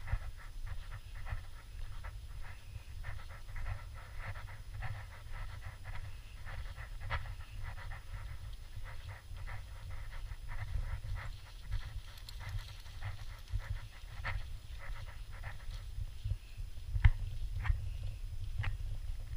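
Welsh springer spaniel panting rapidly and steadily, over a low rumble of wind and movement on the microphone, with a sharp knock near the end.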